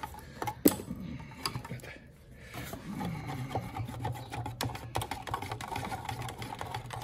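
A stirrer scraping and knocking around the inside of a tin of thick acrylic wall paint thinned with water, as the paint is mixed. There is a sharp knock about half a second in, and a steady low hum underneath from about three seconds on.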